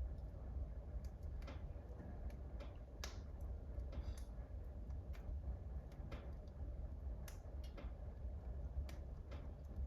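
Burning wood in a wood burner stove crackling, with irregular sharp pops several times a second, a stronger pop about three seconds in, over a steady low rumble of the fire.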